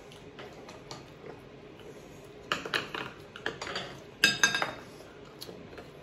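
A fork clinking and scraping against a ceramic plate while eating: a run of light clicks about two and a half seconds in, then a louder, briefly ringing clink just after four seconds.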